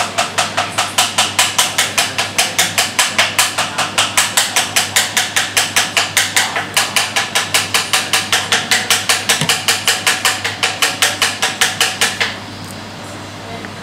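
A steady run of sharp, evenly spaced clicks or ticks, about four a second, with a brief break around the middle, stopping shortly before the end.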